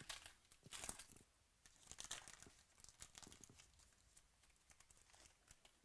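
Faint crinkling and tearing of a 2018 Luminance Football trading-card pack wrapper as it is ripped open. The sound comes as short, irregular crackles that thin out to a few light ticks in the last couple of seconds.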